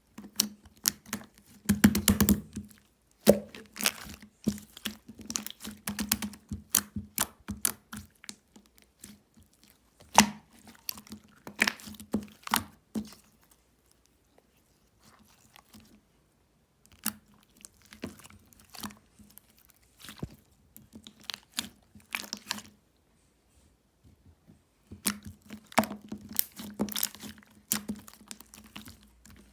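Irregular clusters of sharp crackling and crunching clicks, stopping for a few seconds about halfway through and again later, over a faint steady low hum.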